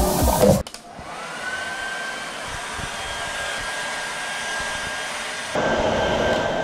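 Handheld hair dryer blowing steadily, with a whine that rises briefly and then holds one pitch; the blowing grows louder about five and a half seconds in.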